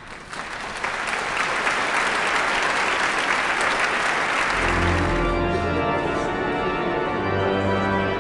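Audience applauding, then from about five seconds in an organ playing sustained chords with deep bass notes as the applause dies away.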